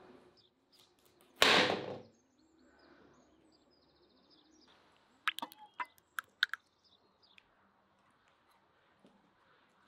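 A large knife cutting into a whole ripe watermelon: one loud crunching crack about a second and a half in as the melon splits, then a quick run of sharp clicks and taps a few seconds later as the blade and rind meet the metal tray. Faint bird chirps in the background.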